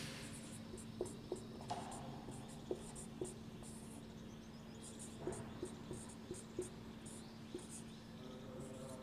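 Marker pen writing on a whiteboard: faint, short scratchy strokes with small clicks as the tip touches and leaves the board.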